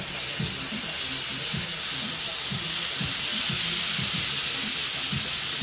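Raw bacon pieces sizzling in a hot cast-iron skillet, a steady hiss that grows a little louder about a second in as more bacon goes into the pan.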